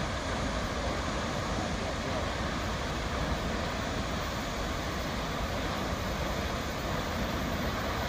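Tad Fane twin waterfall in heavy flow, heard across the gorge as a steady, even rushing roar of falling water.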